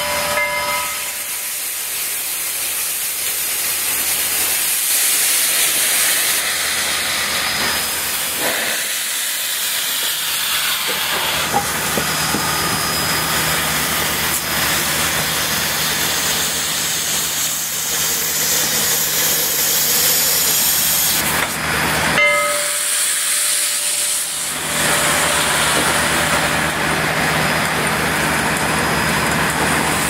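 Standing steam locomotive Southern Railway 4501 venting steam: a loud, steady hiss with a low, even hum beneath it.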